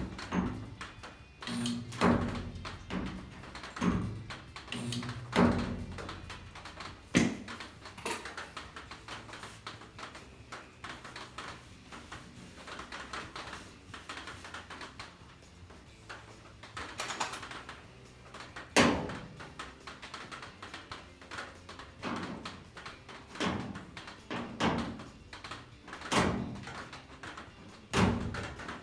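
Irregular knocks and clunks, several seconds apart, some ringing briefly, as tools and metal parts are handled and set down during bodywork.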